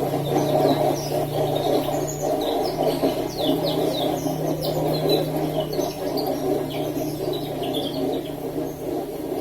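Electric spinner (centrifugal draining machine) running steadily: a constant motor hum under a dense whirring rumble from the spinning basket, with short high chirps scattered over it.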